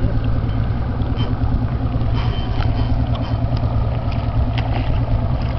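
Fishing boat's motor running steadily, a constant low hum, with a few faint ticks above it.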